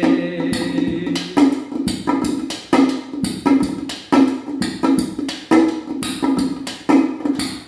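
Instrumental break in a sung Hindi song: hand drums play a steady beat with no singing.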